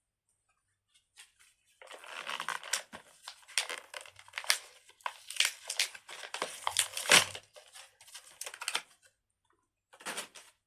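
Plastic crinkling and rustling, with many sharp clicks, as a fidget toy is handled; it starts about two seconds in, stops near the end, and comes back briefly.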